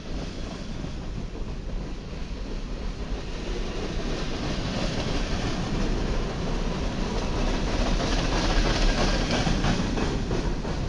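Freight train's tank cars and covered hopper cars rolling past close by, their steel wheels running on the rails with a clacking over the rail joints. It grows louder toward the end.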